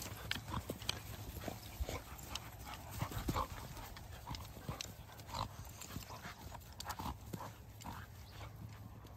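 A chocolate Labrador puppy and a doodle play-fighting: short, irregular dog vocalizations mixed with the thud and scuffle of paws on dry ground.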